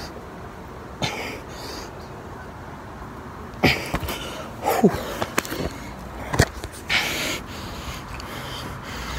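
Hard, heavy breathing and forced exhalations from a person straining through the last push-ups of a 50-rep set, with a short falling grunt about five seconds in. A few sharp knocks sound in the middle.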